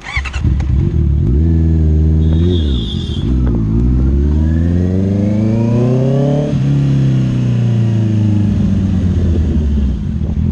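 Honda CBR650R's inline-four engine starting, then blipped a few times. It then pulls away with the pitch climbing steadily, drops at a gear change about six and a half seconds in, and falls slowly as the bike eases off.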